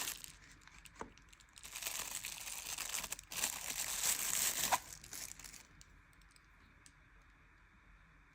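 Crinkling and rustling handling noise in irregular bursts, with a sharp click near five seconds in, dying away to quiet room tone after about five and a half seconds.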